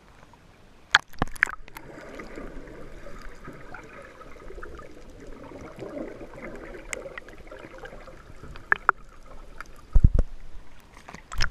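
Water gurgling and sloshing, with a muffled, bubbly stretch through the middle. A few sharp knocks, about a second in and near the end.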